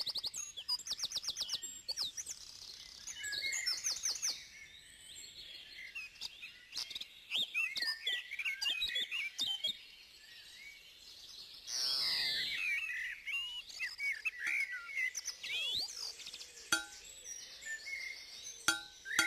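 Birds chirping and singing: quick runs of repeated notes and short varied trills, several calls overlapping.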